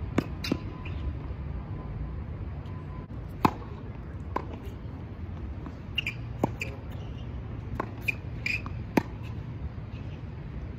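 Tennis balls struck by rackets and bouncing on a hard court during a rally: sharp pops at irregular gaps of about a second, the loudest about three and a half seconds in. Short sneaker squeaks come in around the middle and near the end, over a steady low rumble.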